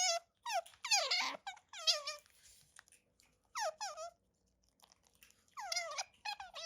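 Asian small-clawed otter making squeaky 'nyam nyam' calls while gnawing on a hair tie, in several short bursts of high chirps that drop in pitch.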